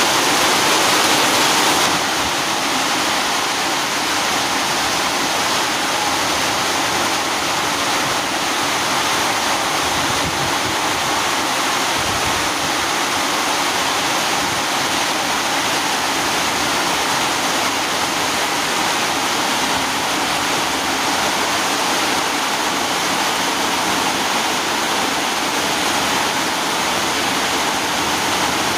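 Heavy tropical downpour: a steady, even hiss of rain pouring down. A slightly louder rush fills the first two seconds.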